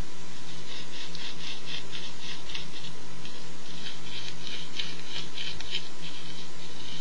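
Fingers rolling a joint: the rolling paper and its filling rustle and crinkle in quick, irregular little scratches, over a steady electrical hum.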